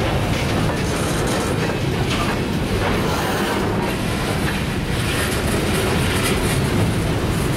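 Covered hopper freight cars rolling past at close range, their steel wheels clacking over the rail joints over a steady rolling noise.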